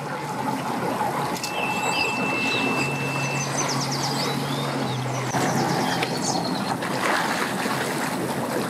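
Outboard boat motor idling with a steady low hum over a general outdoor noise, with birds chirping briefly about two seconds in and again around seven seconds.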